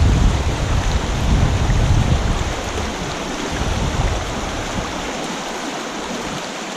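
Shallow river rapids rushing steadily over stones. A low wind rumble on the microphone fades out about two-thirds of the way through.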